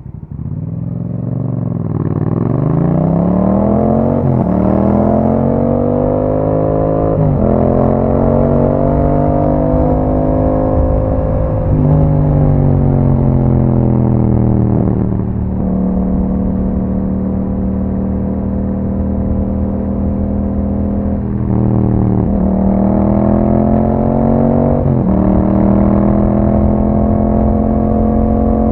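Yamaha MT-07's 689 cc parallel-twin engine through an Akrapovič exhaust, accelerating up through the gears. The pitch climbs and then drops sharply at each of several upshifts, sags for a few seconds, holds a steady cruise in the middle, then climbs through two more shifts.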